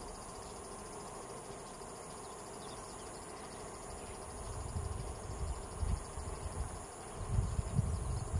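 Steady high-pitched trilling of a chorus of singing insects, with a fast, even pulse. Low rumbling bursts come in about halfway through and again near the end.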